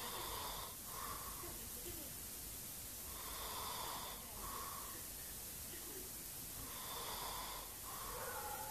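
Man snoring in his sleep: three rasping snores about three and a half seconds apart, each followed by a shorter second sound.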